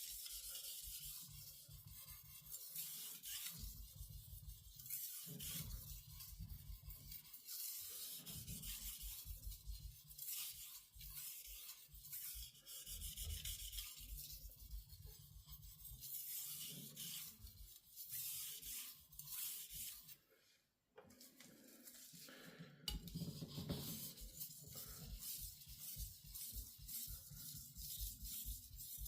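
Japanese carbon-steel knife's bevel being rubbed back and forth on an Aizu Japanese natural sharpening stone, a run of repeated scraping strokes. The strokes stop for a moment about twenty seconds in, then carry on.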